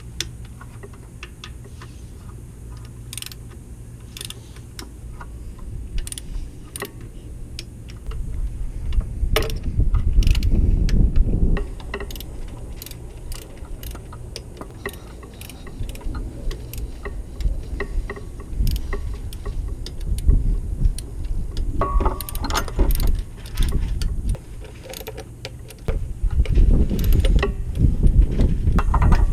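Hand tools working the engine's bolts: a ratchet clicking and metal tools clinking, with irregular knocks and handling bumps, heavier about a third of the way in and near the end.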